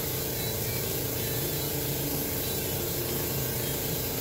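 Airbrush spraying paint in a steady, unbroken hiss while shading around a rivet, with a steady low hum underneath.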